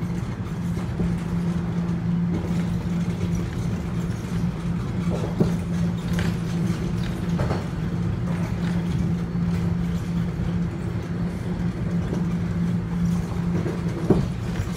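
Subway train running between stations, heard from inside the car: a steady hum over wheel and track rumble, with a couple of sharp clicks about five seconds in and again near the end.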